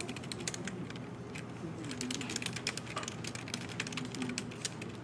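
Fast, continuous typing on a Logitech computer keyboard: a rapid, irregular run of key clicks.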